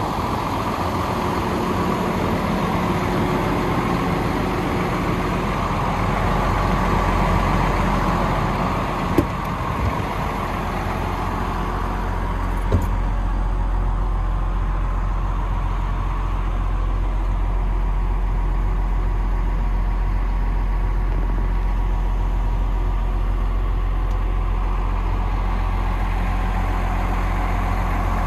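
Hino 7.6 L diesel engine idling steadily, with an even low hum. There are two sharp knocks about nine and thirteen seconds in, after which the engine sound turns duller.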